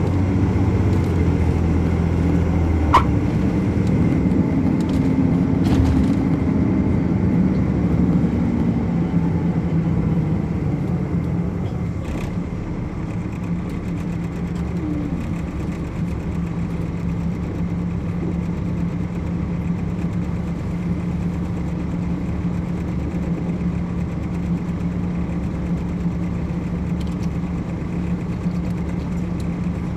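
Caterpillar C13 diesel engine of an MCI D4500CL coach running: louder for the first ten seconds or so, then a steady drone. A sharp click sounds about three seconds in.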